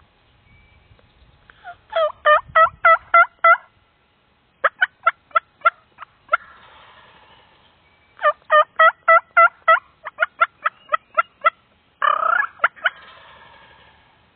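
Loud turkey yelping: a run of about seven yelps, then a string of short sharp clucks, then another run of about seven yelps. A quick run of cutting notes follows, with a harsher burst about twelve seconds in.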